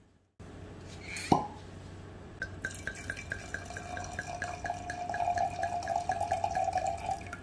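Red wine being poured into a wine glass: a steady run of glugging ticks about five a second, with the pouring growing louder in the second half. A single sharp clink comes about a second in.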